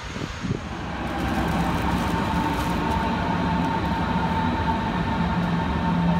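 Berlin S-Bahn electric train standing at a platform with its doors open, its onboard equipment giving a steady hum with a held high whine and a low drone. This comes in about a second in, after a brief low rumble of wind on the microphone.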